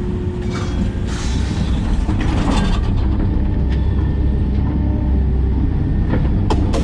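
Hitachi 130LCN hydraulic excavator's diesel engine running steadily under load, with a few brief clatters in the first few seconds.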